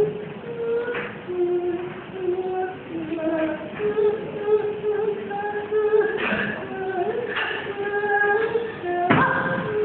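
A woman singing a slow, gliding melody, with a few sharp thumps, the loudest about nine seconds in.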